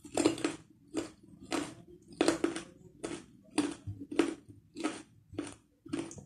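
A person chewing a mouthful of carrot close to the microphone, with evenly paced crunches about twice a second.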